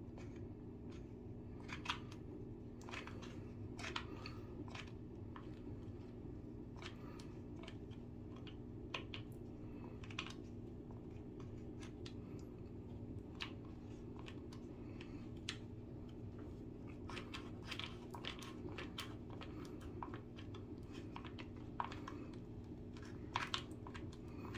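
Irregular small clicks and crackles from a hot glue gun being worked with its nozzle in a drywall hole, over a steady low hum.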